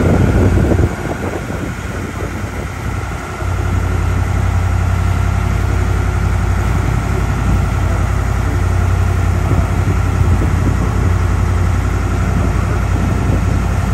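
Fishing boat's engine running steadily under way, a loud low hum under a rushing wash; it eases off about a second in and picks back up a couple of seconds later.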